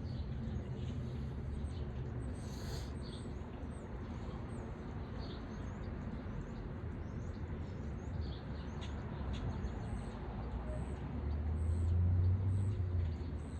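Small birds chirping, many short high calls scattered throughout, over a steady low rumble that swells for a couple of seconds near the end.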